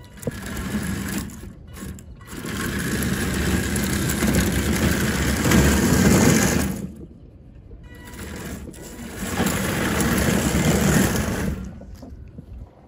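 Homemade tracked robot driving: its electric drive motors whirring and its metal track slats clattering, in three spells of a few seconds each with short pauses between.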